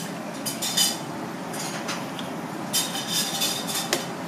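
Knife scraping and sliding between the skin and flesh of a scaly fish fillet on a plastic cutting board, with several short scrapes and metallic clinks over a steady background noise.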